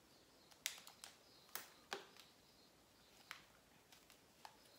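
Near silence with about five faint, short clicks and rustles from hands plaiting a lock of hair into a simple three-strand braid.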